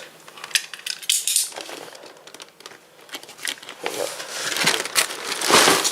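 A cardboard LEGO set box being handled: scattered light taps and clicks with rustling, and a louder scraping rustle near the end.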